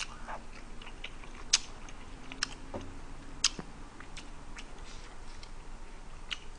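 Quiet eating sounds: chewing, with a few scattered sharp clicks of a metal spoon against a pot of kimchi stew.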